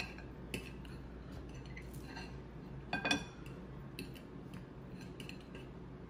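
Metal fork clinking and scraping against a ceramic plate while twirling fettuccine, a few separate clinks with the loudest cluster about three seconds in.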